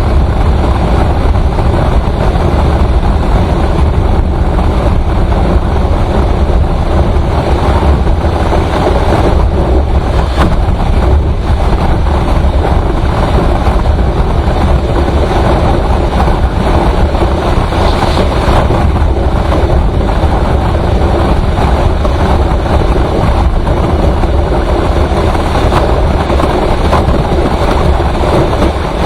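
Motorcycle riding at highway speed: a loud, steady rush of wind over the microphone with engine and road noise underneath.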